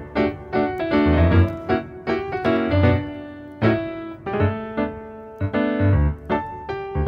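Background piano music: a melody of struck notes over low bass notes.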